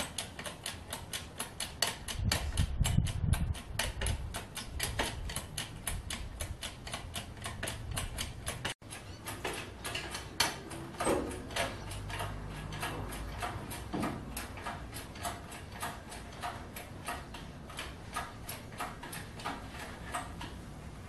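Hand-pumped hydraulic engine crane being worked: a steady run of quick clicks, several a second. A low rumble about two to four seconds in.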